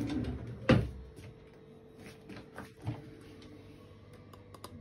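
Kitchen cutlery drawer rummaged and shut with one sharp knock about a second in, followed by lighter clicks of a metal teaspoon against the coffee jar, with a cluster of quick clicks near the end.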